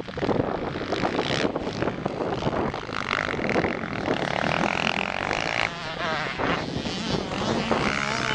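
Motocross dirt bike engines buzzing and revving, pitch rising and falling. One bike revs hard as it pulls away through the dirt near the end.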